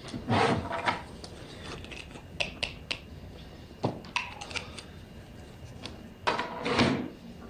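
Scattered soft clicks and taps, with two louder rustling sounds: one about half a second in and one near the end.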